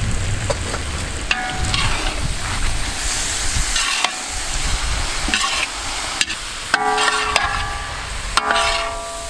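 Diced chicken and sliced bell peppers sizzling in a large wok as a steel spatula stirs and scrapes them, metal scraping on the pan. Three of the scrapes ring with a squealing tone, about a second in and twice near the end.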